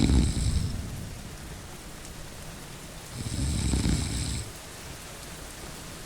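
A person snoring, two long snores about three seconds apart, over the steady hiss of rain.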